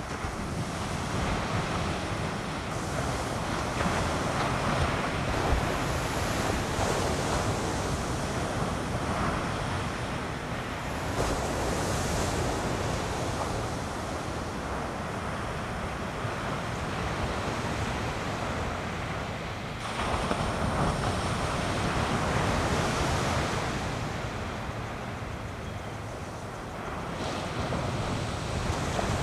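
Ocean surf breaking and washing up a sandy beach, a steady rush that swells and eases as the waves come in, with wind on the microphone.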